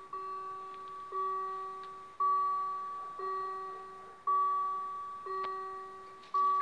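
Electronic warning bell of a German railway level crossing ringing about once a second, each strike a two-tone ding that fades away. It sounds while the red lights flash, warning that the crossing is closing for an approaching train.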